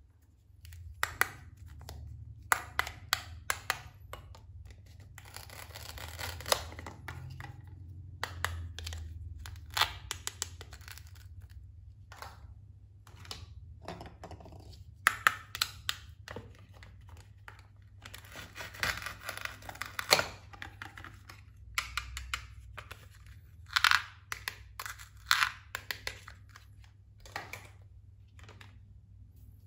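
Plastic toy kitchen pieces handled, tapped and scraped: irregular sharp clicks with a few scratchy, rasping stretches.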